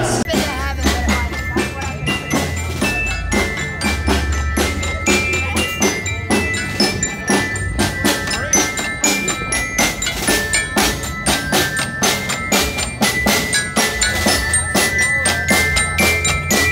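Street percussion band playing: bright glockenspiel (bell lyre) notes struck over steady, busy drumming on snare and bass drums, with a low bass note underneath at times.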